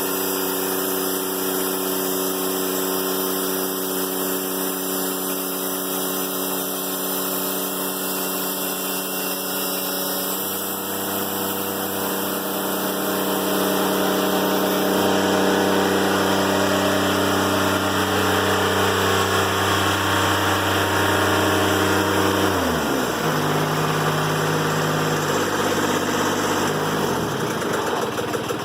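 Diesel engine of a Timberking 1400 band sawmill running steadily. Its note shifts about ten seconds in, then drops in pitch about two-thirds of the way through and settles at a lower speed.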